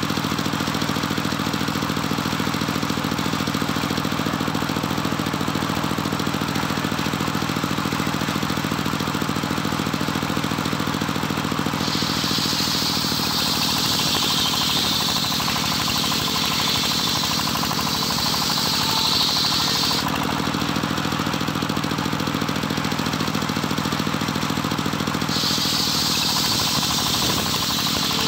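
Homemade engine-driven circular saw bench running steadily, its engine a constant low drone. The blade cuts through johar wood twice, adding a high-pitched ripping whine through the middle and again near the end.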